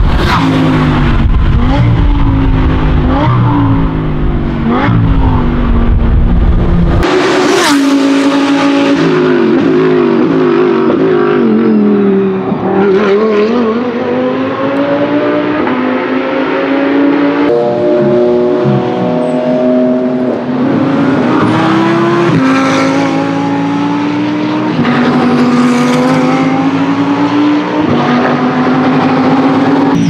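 Audi R8 LMS GT4's 5.2-litre V10 racing engine at full throttle on track. Its pitch climbs and drops back at each quick upshift, and the note falls for a few seconds in the middle as it slows, then climbs through the gears again.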